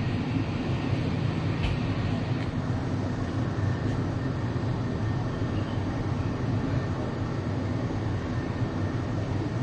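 MTR East Rail Line train running, heard from inside the passenger car: a steady rumble of wheels and running gear, with a single click about one and a half seconds in.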